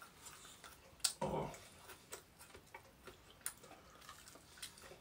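Faint wet mouth clicks and lip smacks of a person eating meat off a chicken wing, scattered irregularly, with a brief low sound about a second in.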